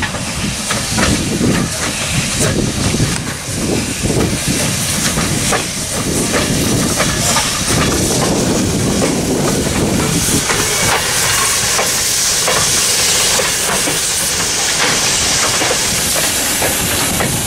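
Essex Terminal Railway No. 9, a 1923 Montreal Locomotive Works 0-6-0 steam switcher, running past close by with a steady hiss of steam and the rumble and clatter of its wheels and running gear. The hiss grows louder in the second half as the locomotive draws level.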